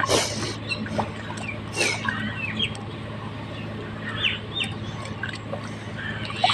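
Hands squelching and splashing in wet mud, loudest at the very start and again just under two seconds in. Short chirping calls of birds come through throughout, over a steady low hum.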